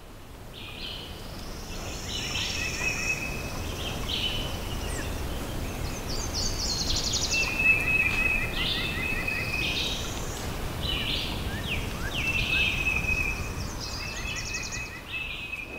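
Birds chirping and singing in repeated short phrases and trills over a steady low rumble of background noise.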